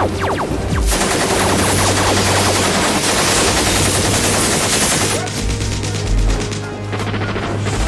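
Rapid automatic gunfire from a film battle's sound effects, over background music, with a couple of deep thuds about two-thirds of the way through.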